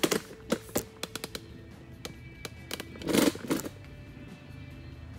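Background music with steady held tones, over a series of sharp clicks and knocks. The knocks are thickest in the first second, and the loudest cluster comes about three seconds in.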